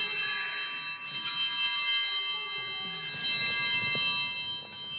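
Altar bells rung at the elevation of the consecrated host. The ringing is already sounding at the start, is struck again about a second in and about three seconds in, and each ring fades slowly.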